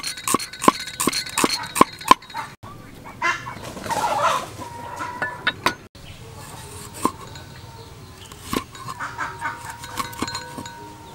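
A cleaver chopping on a wooden chopping block, slicing a shallot in quick even strokes of about three a second for the first two seconds. After that, only a few separate knocks of the blade as a lime is cut in halves and wedges.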